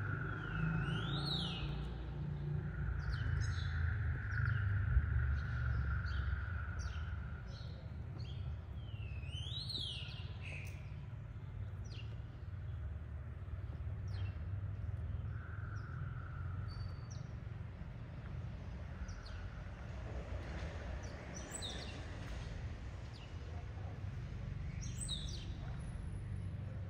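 Small birds chirping in short calls, with a couple of swooping notes about a second in and again around ten seconds. A steady low street rumble runs underneath.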